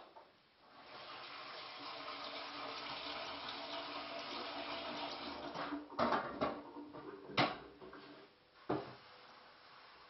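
Kitchen tap running into the sink for about five seconds, then turned off, followed by a few sharp knocks and clatters.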